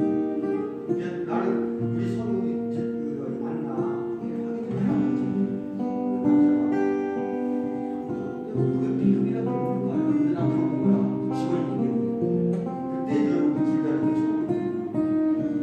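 Acoustic guitar strumming chords, with pitched notes changing every second or so.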